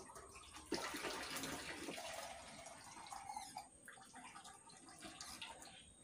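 Water pouring and splashing, with a sudden louder gush about a second in that eases off into smaller, uneven splashes.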